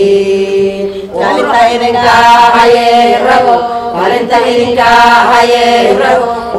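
Singing in a chant-like style: a voice holding long notes that waver and glide between pitches, with a short break about a second in.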